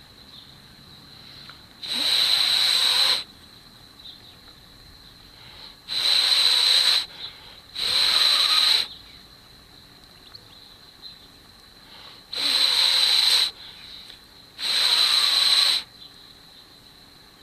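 Someone blowing steady breaths onto a smouldering ember in a tinder bundle to coax it into flame, five long blows a few seconds apart.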